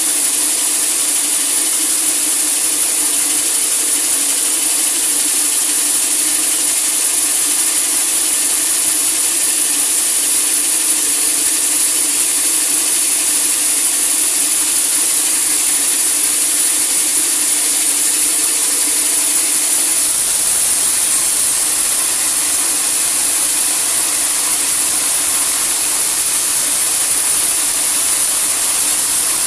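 Sawmill saw running steadily through a large teak log, a loud even whine and hiss, its tone shifting slightly about twenty seconds in.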